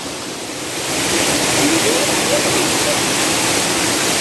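Rushing water of a waterfall, a steady loud roar that swells up about a second in, with a faint voice briefly over it.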